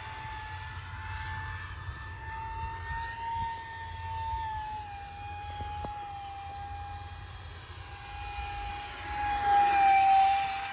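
Steady high whine of a 50 mm electric ducted fan on an RC jet in flight. It swells loudest near the end as the jet passes close, then eases off.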